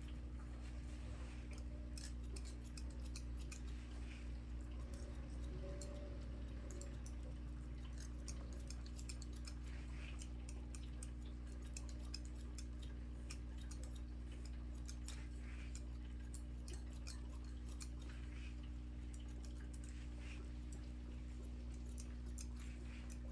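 Barber's scissors snipping hair in quick, irregular clicks, over a steady low hum.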